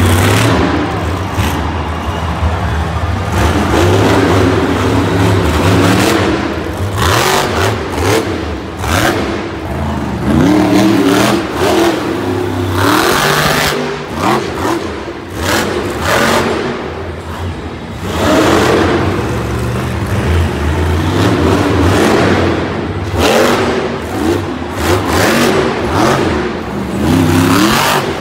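El Toro Loco monster truck's supercharged V8 engine revving hard over and over, its pitch climbing and falling many times as the truck drives the run.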